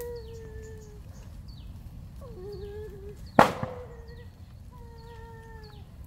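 Drawn-out animal calls, several of them, each about a second long and fairly level in pitch, with short high falling chirps repeating throughout. A single sharp knock about three and a half seconds in is the loudest sound.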